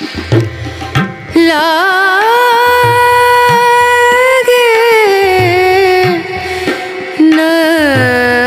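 Background music: a Hindi song, a voice holding long ornamented notes that slide and waver in pitch over a slow, steady drum beat.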